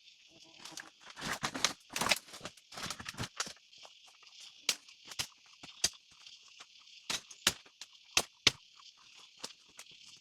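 Steady insect chorus, with a burst of rustling and cracking about one to three and a half seconds in, then separate sharp knocks or snaps roughly every half second to second.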